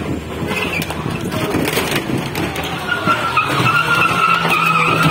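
A Chevrolet Cobalt's engine revving hard while its tyres spin and squeal on the wet road, the car pressed against another car. From about three seconds in the squeal settles into a steady high screech.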